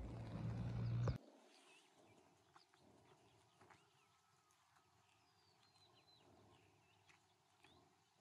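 A low rumbling noise cuts off abruptly about a second in, leaving a very quiet outdoor background with faint, scattered bird chirps and a few soft clicks.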